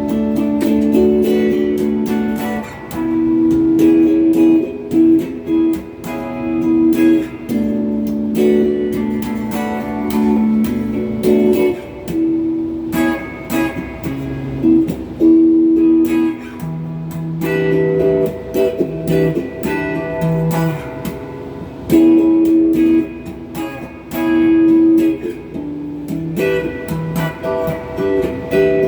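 Electric guitar, a Donner strat-style with HSS pickups, played through a Crate GX30M amp: strummed chords and ringing notes that change every second or two.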